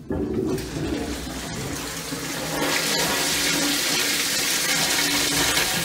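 Plastic toilet cistern flushed by its push button, water rushing out into a squat toilet. The rush starts suddenly and runs on steadily.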